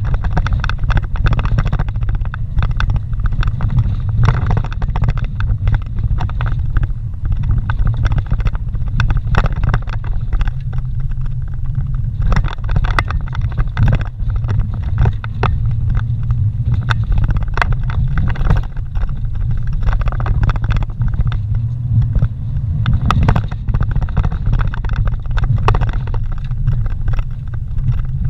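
Vehicle driving slowly over a rough dirt trail, heard from inside: a steady low engine and tyre rumble with frequent irregular knocks and rattles as it rides over the bumps and ruts.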